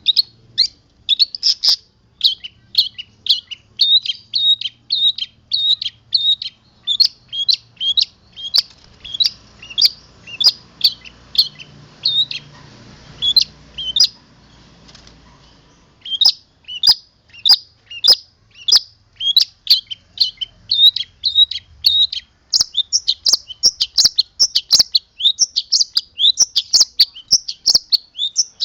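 Long-tailed shrike (cendet) singing a long run of short, sharp chirps, its song full of imitated fill notes. The chirping pauses briefly about halfway through, then comes faster and denser near the end.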